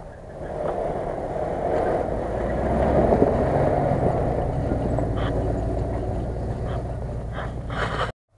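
Land Rover Discovery 4x4 driving past through snow, its engine pulling under load and tyres churning the snow, growing louder about half a second in and loudest about three seconds in, with a few sharp clicks later on. The sound cuts off abruptly near the end.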